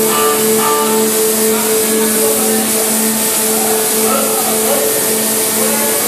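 Tunnel boring machine running during lining-ring assembly: a loud, steady machine hum with a constant tone under an even hiss, as the segment erector moves a concrete segment into place.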